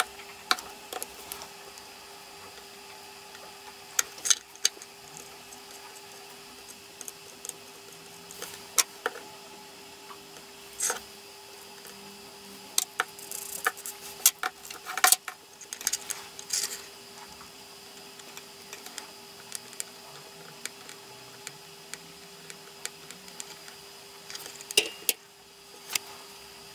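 Hands handling a laptop RAM module on a wooden desk: scattered small clicks and taps at irregular intervals, a few sharper than the rest, over a faint steady hum.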